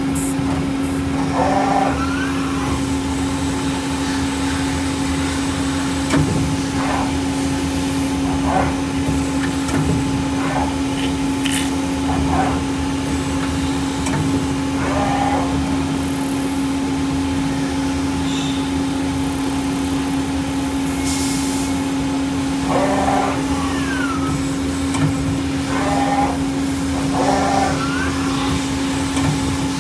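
Okuma LB15 CNC lathe running with a steady hum over a low rumbling machine noise.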